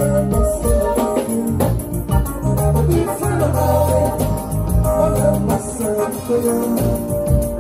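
Band music with organ-toned electronic keyboard chords held over deep bass notes and light percussion.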